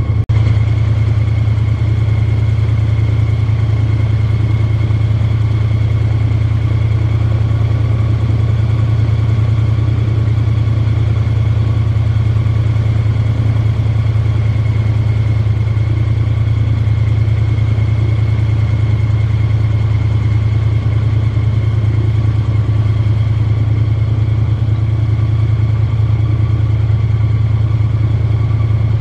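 Airboat engine idling steadily, a constant low hum with no change in pitch or level.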